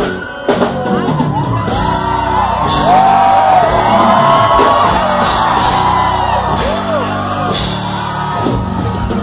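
Loud live band music with singing, under a crowd screaming and whooping. Shouts rise and fall in pitch through most of it.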